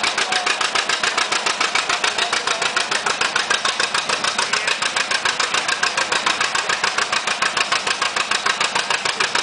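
Antique John Deere two-cylinder tractor engine working hard under load while pulling a weight-transfer sled. Its exhaust gives a rapid, even string of pops that stays steady throughout.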